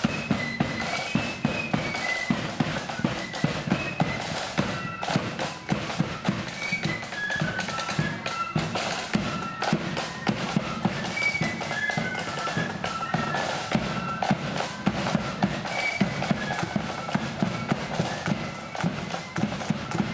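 Marching flute band playing a tune on flutes over a steady marching drumbeat.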